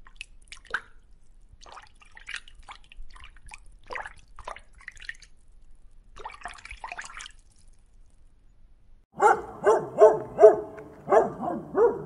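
Faint, scattered watery clicks and drips, like underwater bubbling. About nine seconds in, a dog starts barking in a quick, loud run of sharp barks, about three a second.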